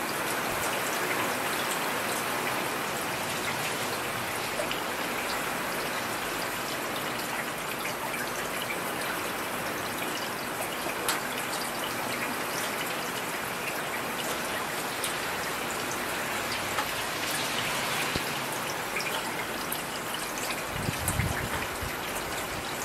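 Steady heavy rain falling, an even dense hiss with scattered sharper drop hits. A brief low rumble rises under it near the end.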